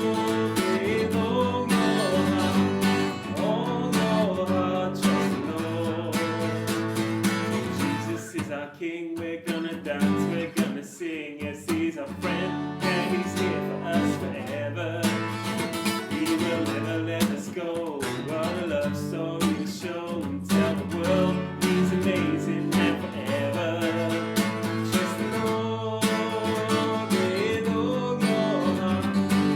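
Worship song music led by strummed acoustic guitar, with a brief quieter stretch about nine seconds in.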